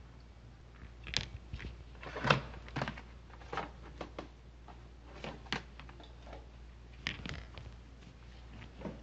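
Scattered light knocks and clicks, about a dozen at irregular intervals, over a steady low hum.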